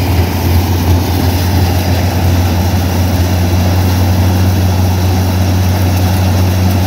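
Peanut thresher running steadily as peanuts are fed in, separating the pods from the soil and chaff: a loud, steady low drone under a constant rushing noise.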